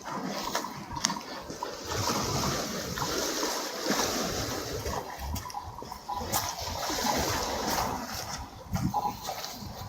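Sea waves splashing and washing against the shore in a steady, surging rush.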